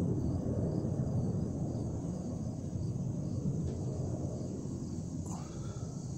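Outdoor ambience: a steady low rumble of distant noise, with faint high chirps repeating about twice a second and one short chirp about five seconds in.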